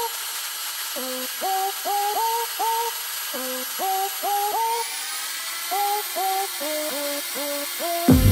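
Background music: a melody of short notes, each sliding up in pitch, repeated in phrases of three or four.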